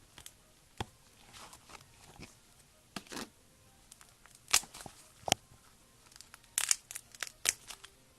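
Slime being worked by hand, giving irregular sharp pops and crackles with short sticky bursts, coming in clusters about three, five and seven seconds in.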